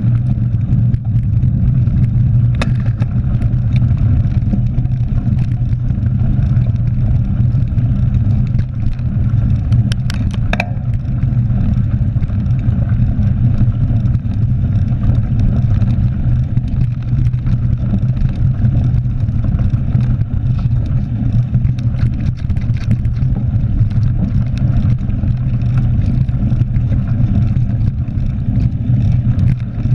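Steady low rumble of wind on a handlebar-mounted action camera's microphone and mountain-bike tyres rolling over a gravel forest track. Occasional short clicks and rattles come through, near the start and about a third of the way in.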